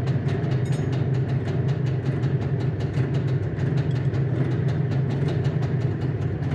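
IZh Jupiter-4 350 cc two-stroke twin engine idling steadily, the exhaust pulses even and rapid. The exhaust elbows at the cylinder heads are still blowing slightly at their joints.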